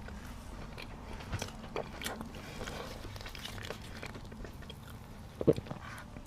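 Close-miked eating of bread: bites and chewing with small, scattered crackles, and one sharper knock about five and a half seconds in.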